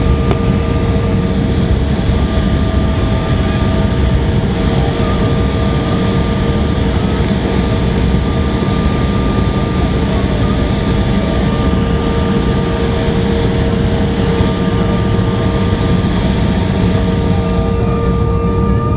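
Cabin noise of an Embraer 170 jet rolling out on the runway after landing: a loud, steady rumble with a steady whine from its CF34 turbofan engines.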